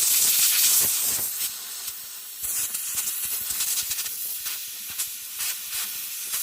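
Compressed air hissing from a blow gun as it is blown through a CVT transmission oil strainer to clear out metal particles. It is loudest for about the first second, then a little softer and uneven.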